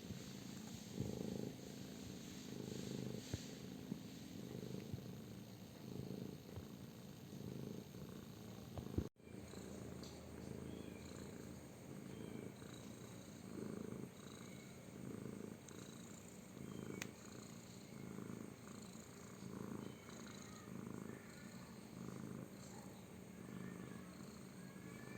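Mother cat purring steadily, the purr swelling and fading with each breath about once a second.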